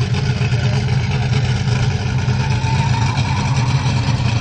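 Bigfoot monster truck's engine running at a steady low rumble as the truck rolls slowly, without hard revving.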